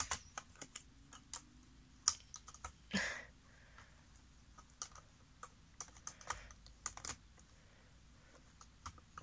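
Blue plastic toy train track pieces being handled and fitted together: faint, irregular plastic clicks and taps, a few sharper ones about two and three seconds in.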